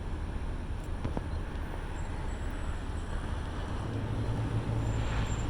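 Low, steady rumble of a train, growing slightly louder near the end.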